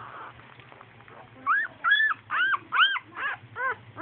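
Newborn red-nose pit bull puppy whimpering: a run of about six short, high squeals, each rising and falling in pitch. The squeals start about a second and a half in and grow fainter toward the end.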